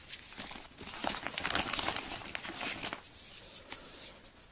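Packaging crinkling and rustling as small fireworks items are handled and unwrapped, an irregular crackle that is busiest in the middle and fades near the end.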